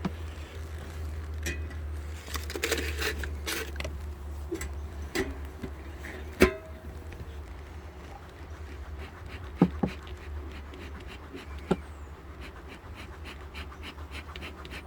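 Honeybees humming steadily around an open hive, with a few sharp wooden knocks as frames and the hive tool are handled, the loudest about six seconds in.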